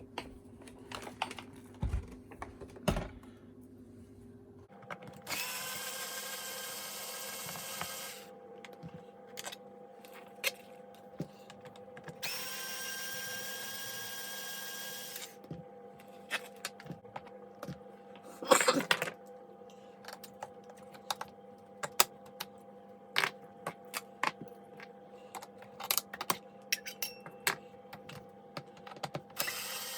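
Power screwdriver whirring in two runs of about three seconds each, driving out screws as the plastic casing of an Electrolux Twin Turbo vacuum cleaner is taken apart, with clicks and knocks of screws and plastic parts being handled between the runs.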